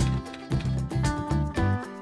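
Background music with a regular beat, bass and held melodic notes.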